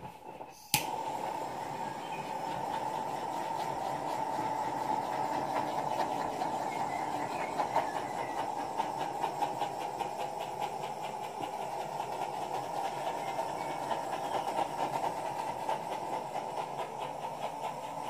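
Hair dryer switched on with a click a little under a second in, then running steadily, blowing air over the painting.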